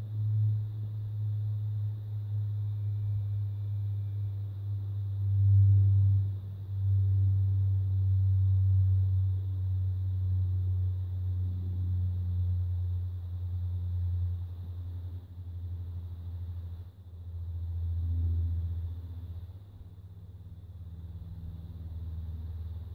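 Low rumble of wind buffeting the camera microphone, swelling and easing in gusts, loudest about a quarter of the way in and again past the middle.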